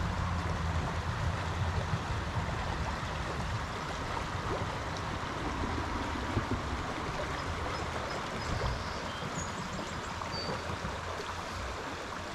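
Small stream's running water, a steady rush and gurgle of shallow riffles.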